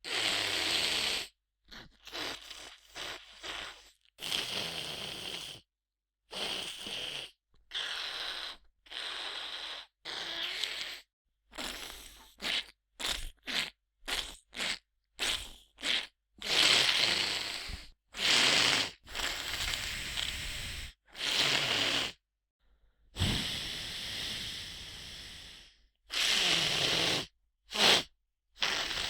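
A person with a stuffy nose sniffling and breathing through a blocked nose: a long run of separate hissy sniffs and snorts of varying length, some quick in clusters, some drawn out over a second or two, each broken off to silence.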